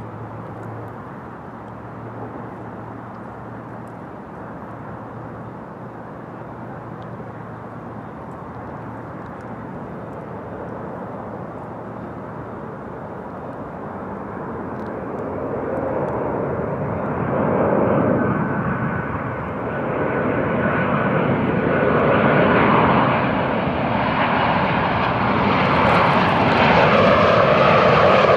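Boeing 737-800 airliner's CFM56-7B jet engines on landing approach, a steady rumble that grows louder as the plane closes in, with the hiss rising higher and strongest near the end.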